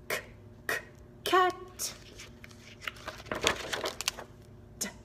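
A page of a spiral-bound paper book being turned: a papery rustle lasting about a second, a little past the middle. Before it come short, clipped voice sounds spoken one after another.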